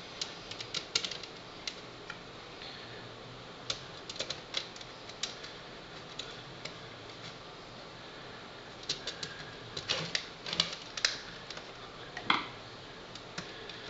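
Irregular light clicks and taps of small metal screws being handled and set into the holes of a computer optical drive's sheet-metal top cover, coming in scattered clusters.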